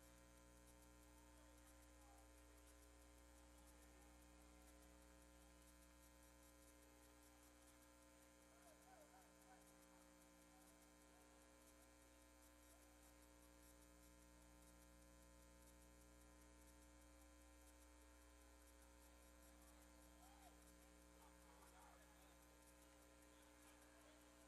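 Near silence: a faint, steady electrical hum on an otherwise silent audio line.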